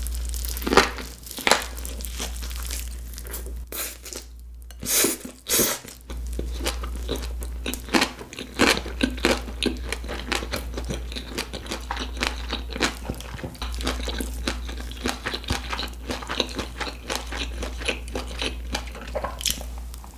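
Close-miked eating of spicy fish-cake gimbap: biting and chewing with many small crunchy clicks, two louder bites about five seconds in, over a steady low hum.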